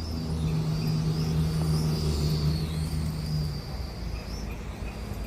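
Small toy quadcopter in flight, its motors giving a high whine that wavers in pitch as the throttle changes. Under it is a strong low hum that fades out about three and a half seconds in.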